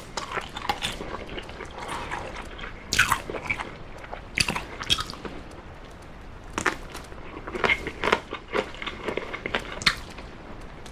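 Close-miked eating sounds: a person biting and chewing oven-baked chicken drumstick meat, with irregular crackly bites and smacking between quieter chewing.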